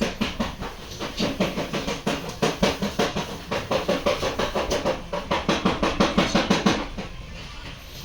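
Rapid hammer blows on car-body sheet metal, about five or six strikes a second, in panel beating of accident damage. The blows ease off shortly before the end.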